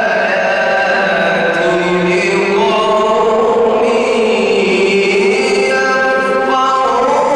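A man reciting the Quran in the melodic Egyptian mujawwad style, holding long notes that glide slowly up and down.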